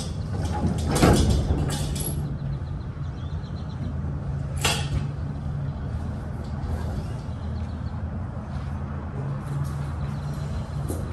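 A vehicle engine idles with a steady low hum while a manual pallet jack is strapped down in a truck's cargo box, giving a few sharp knocks and rattles of metal, the loudest about a second in and another near the middle.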